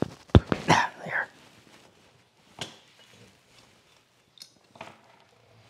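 Sharp clicks and knocks of a small steel tool working at a rusty, stuck hand-plane blade and chipbreaker, loudest about half a second in, followed by a short breathy sound and a few faint taps.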